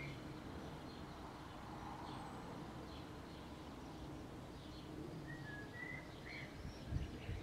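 Outdoor ambience with small birds chirping: a few short chirps about five to six seconds in, over a steady low background rumble, and a brief low thump near the end.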